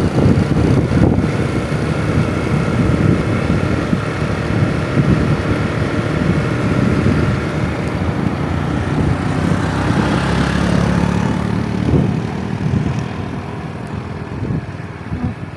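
Motorcycle running along a road, its engine drone mixed with heavy wind rush on the microphone; the noise eases off over the last few seconds.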